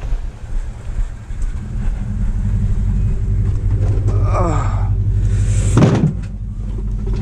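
Toyota Tundra pickup's engine idling with a steady low hum, with a sharp knock about six seconds in as something is put into the truck bed.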